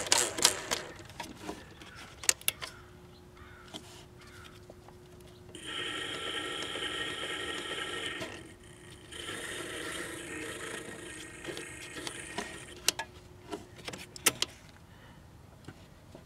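Magnavox record changer's drive motor and rubber idler wheel running with the platter off: a steady faint hum, with two stretches of a few seconds of louder whirring, and clicks and knocks near the start and near the end. The noise comes from the dry, unlubricated idler; the motor itself sounds okay.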